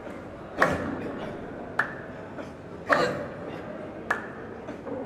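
Slow, steady rhythmic hand clapping from a dhikr circle, one sharp clap a little more than once a second, every other clap heavier and fuller, over a faint crowd murmur in a large echoing hall.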